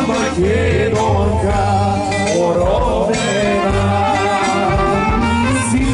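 Macedonian folk song playing: an ornamented melody that wavers up and down over a steady bass accompaniment.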